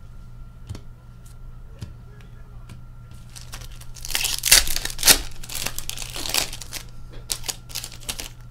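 Foil wrapper of a hockey card pack being torn open and crinkled: loud crackling tearing for about three seconds in the middle, with light clicks of cards being handled before and after.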